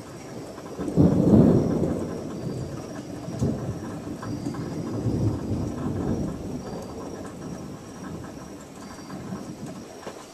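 Thunder breaking suddenly about a second in, then rumbling on with further swells for several seconds before fading, over steady rain.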